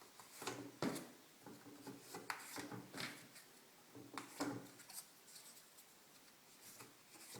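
Foam darts being pushed into the chambers of a plastic toy-blaster drum magazine: a string of irregular plastic clicks and rubbing scrapes.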